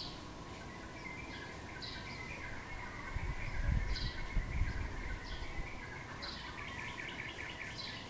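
Wild birds chirping: short high chirps about once a second, with a busier twittering run building near the end. A low rumble comes and goes in the middle.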